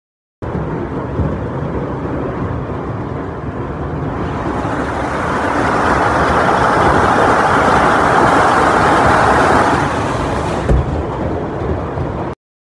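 Heavy hail coming down: a dense, steady clatter and hiss that swells louder midway, with one sharp knock near the end.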